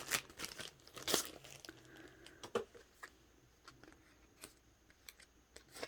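Plastic packaging being handled and opened: crinkling and rustling, busiest in the first second or so, then thinning to sparse soft ticks and clicks.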